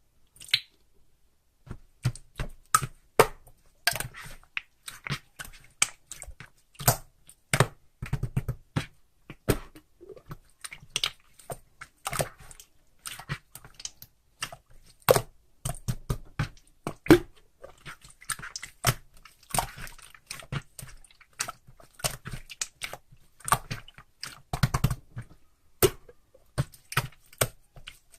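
Close-up crunchy chewing and biting: irregular sharp crunches, several a second, starting about two seconds in.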